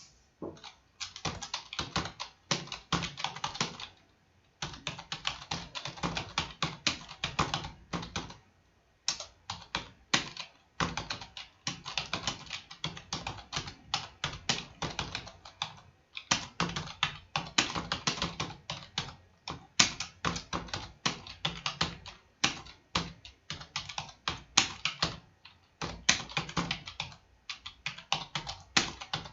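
Computer keyboard being typed on in steady runs of quick key clicks, with short pauses between bursts, several keystrokes a second.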